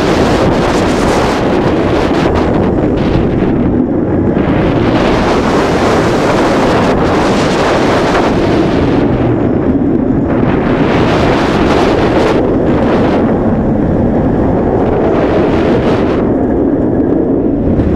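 Wind buffeting the microphone over the rumble of a Bolliger & Mabillard stand-up roller coaster train running at speed on its steel track. The rush of air swells and fades several times as the train swoops through the course.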